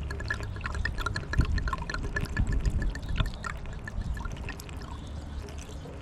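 A bottle of fuel system cleaner being poured into a car's fuel filler, glugging and trickling steadily, then tapering off near the end as the bottle empties.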